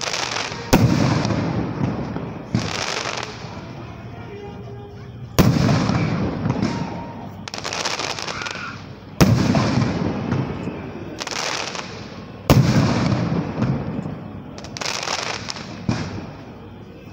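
Aerial firework shells bursting overhead: a sharp bang every few seconds, four of them loud, with weaker ones in between. Each bang is followed by a long rumbling echo that dies away.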